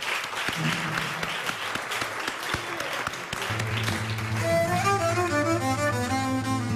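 Audience applause, then about three and a half seconds in a low steady drone enters, and a violin starts a folk melody over it. This is the opening of an Arvanitic folk song from Karystia.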